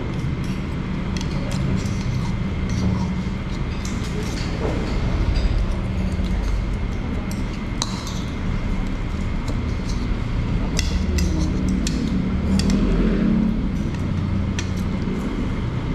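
Forks and spoons clinking and scraping against ceramic plates and bowls during a meal, in scattered short clicks over a steady low background hum.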